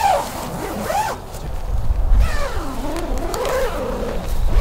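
An animal's high, pitched calls that rise and fall. A short one comes at the start, another about a second in, and a longer wavering one runs from about two to four seconds in.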